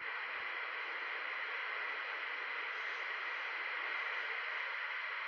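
Steady static hiss from a CB radio receiver between transmissions, with no signal on the channel. It comes on suddenly as the last speaker unkeys.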